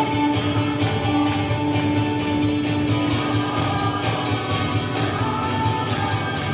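Worship music with a steady beat and long held notes.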